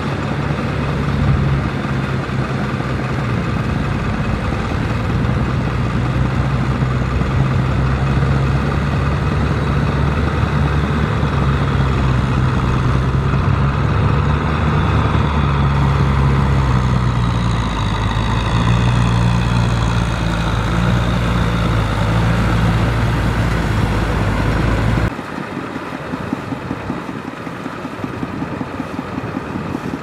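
Diesel tractor engine running steadily under load while the tractor drives a rear rotary tiller through a wet rice paddy. The engine pitch steps up and down a few times. About 25 seconds in, the sound cuts abruptly to a quieter, thinner engine sound.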